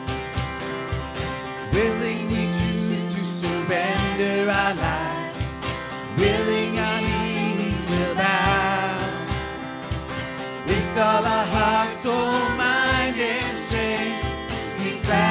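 Live worship band playing: acoustic guitar, keyboard and a cajon keeping a steady beat, with voices singing a slow melody over it.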